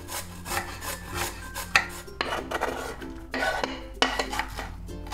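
Raw potato being grated on a flat metal hand grater: a quick run of uneven rasping strokes.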